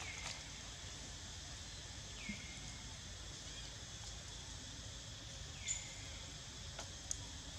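Steady outdoor insect chirring, with three short high calls, about three seconds apart, that slide down in pitch and level off.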